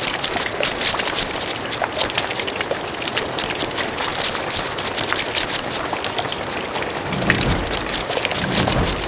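Crab sound effect: a dense, steady crackle of many quick small clicks, like claws scuttling and clicking, with a couple of low thuds near the end.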